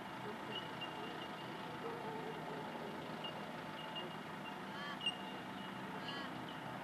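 Outdoor background ambience: a steady low rumble with birds calling, short chirping calls about five and six seconds in.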